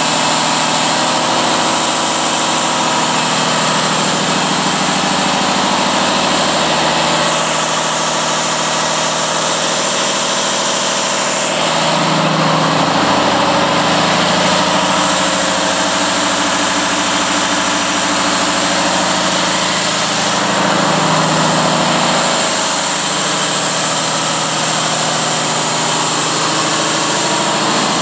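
Mercedes-Benz OM471 inline-six diesel engine on a power unit, running steadily.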